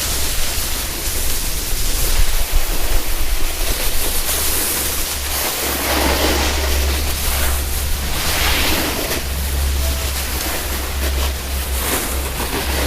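Wind rushing and rumbling over the microphone while snowboarding downhill, mixed with the board's edge scraping over icy snow. It swells in several waves, about four, six and eight to nine seconds in.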